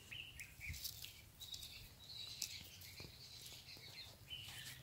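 Faint birdsong: scattered short chirps and trills from small birds, with a few sharp clicks among them.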